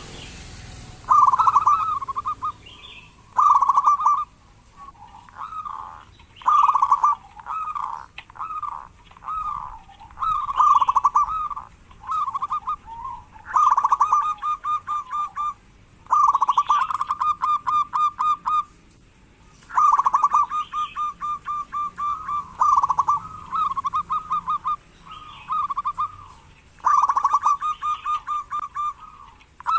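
Zebra dove (perkutut) cooing over and over: phrases of fast, pulsed coos about a second long, broken by short pauses.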